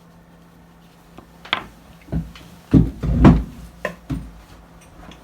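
Six or so irregular knocks and clunks over about three seconds, loudest near the middle: a small part and tools being handled and set down on a workbench while a piece is fitted onto a small motor's shaft.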